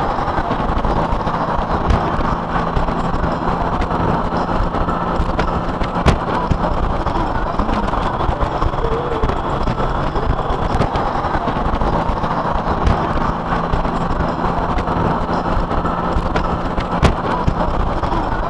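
Motorcycle riding at speed: wind rushing over the microphone with a steady low rumble of engine and road noise, and a couple of sharp knocks from wind buffeting.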